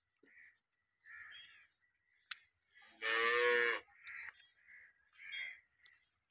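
Cattle mooing once: a single short moo lasting under a second, about three seconds in, with short bird chirps scattered around it.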